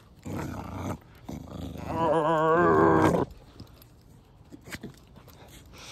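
Puppy growling while tugging on a rope toy: a short rough growl, then a longer, louder growl with a wavering pitch from about a second in to past the three-second mark.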